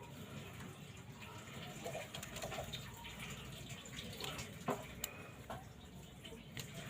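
Light, irregular clicks and scraping from small phone parts being handled during a screen and display replacement, with a couple of sharper clicks about two-thirds of the way through.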